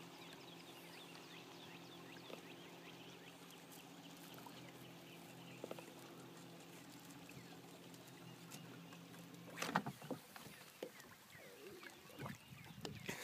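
Fishing boat's electric trolling motor running with a low, steady hum that cuts off suddenly about ten seconds in. After it stops there are light water splashes and a few knocks near the end.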